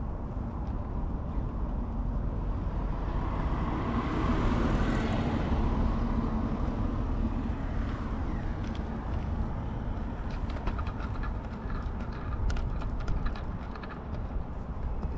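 Outdoor background noise with a passing vehicle that swells and fades about four to five seconds in. Near the end comes a run of small clicks and rustles.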